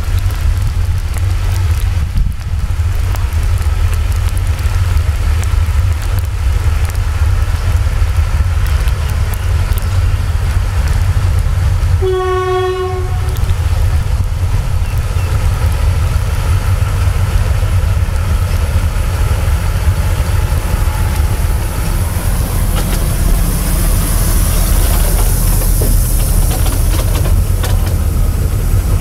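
Diesel locomotive running with a steady, heavy low engine drone. About twelve seconds in, its horn gives one blast of about a second on a single note.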